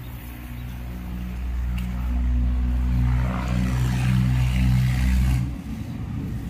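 A motor vehicle's engine running nearby, swelling in the middle and dropping away about five and a half seconds in.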